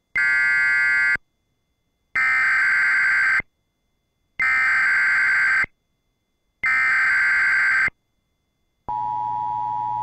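Emergency Alert System SAME header for a National Weather Service tornado warning: four short bursts of digital data tones, each a little over a second long and about a second apart. Near the end the steady two-tone EAS attention signal begins.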